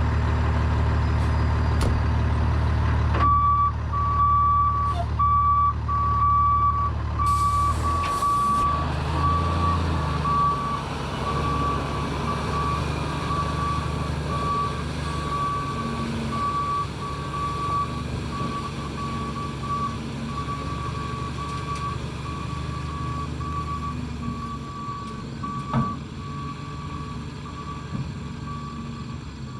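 Gravel dump truck reversing: its diesel engine runs while the back-up alarm starts beeping about three seconds in, in a steady series of single-tone beeps that grow fainter as the truck moves away.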